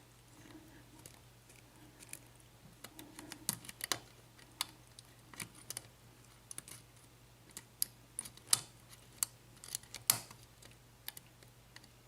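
Metal lock pick and tension wrench clicking against the pins inside a five-pin Lince padlock's keyway. The small, sharp clicks come at an irregular pace as the pins are picked one at a time.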